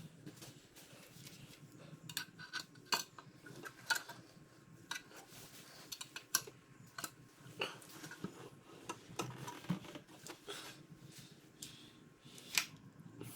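Metal hand tools and engine parts clinking and knocking together in irregular sharp clicks, a dozen or more.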